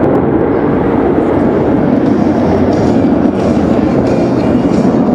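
Jet engines of a Blue Angels formation of F/A-18 Super Hornets climbing away overhead: a loud, steady, deep rumble.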